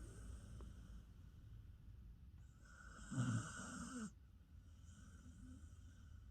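A dog snoring in its sleep: one louder snore about three seconds in, with softer breaths before and after it.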